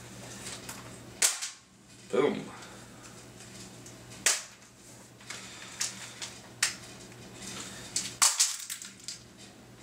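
Plastic snap-fit clips on a Logitech K830 keyboard's case popping loose as the case is pried apart. Several sharp snaps a few seconds apart, with a quick cluster of them near the end.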